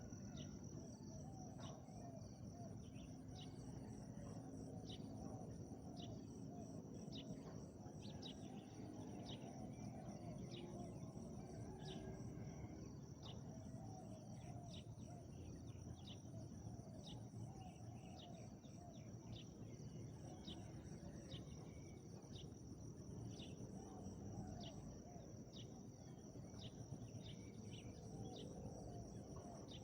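Faint rural ambience: insects trilling and ticking steadily at a high pitch, short high chirps every second or so, and now and then a faint low cooing, typical of spotted doves.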